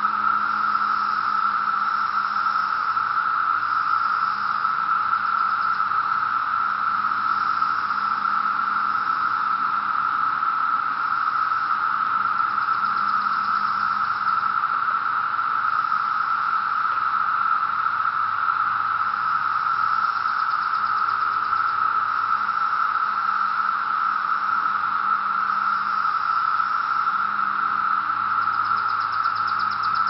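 Dense chorus of thousands of 17-year periodical cicadas: one loud, steady drone held at a single high pitch with no breaks.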